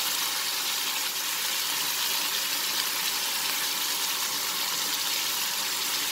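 Chicken cubes frying in oil in a pan: a steady sizzle.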